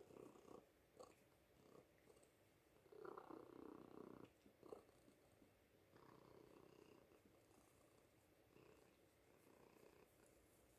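A domestic cat purring faintly, swelling loudest about three to four seconds in.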